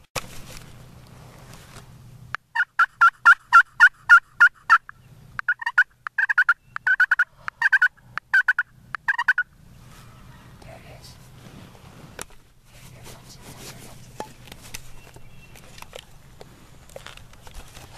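Turkey yelping: two loud runs of evenly spaced, pitched notes, about four to five a second, with a short break between them, ending about halfway through.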